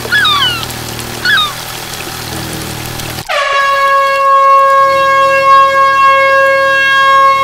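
A truck air horn blowing one long steady note, starting suddenly about three seconds in. Before it, a fainter held note plays with a few short warbling chirps over it.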